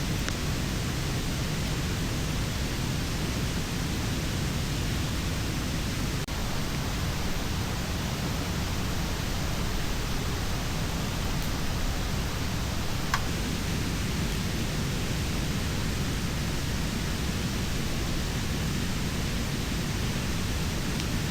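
Steady rushing of a river, an even wash of water noise with no change, with a faint click or two partway through.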